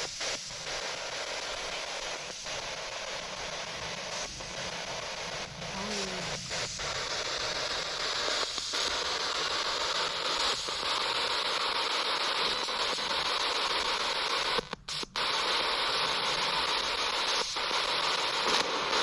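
Spirit box, a radio rapidly sweeping through stations, giving out steady hissing static that cuts out briefly every second or two, with a longer break about fifteen seconds in.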